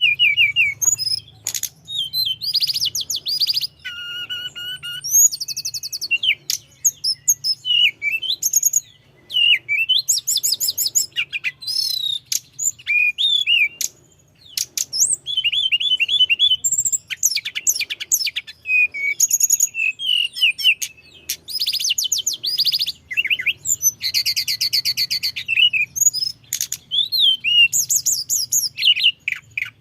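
A tledekan gunung songbird singing on and on in a long rolling song of varied sharp whistles, fast trills and buzzy rattles, with only short pauses between phrases. A faint low hum lies under the song.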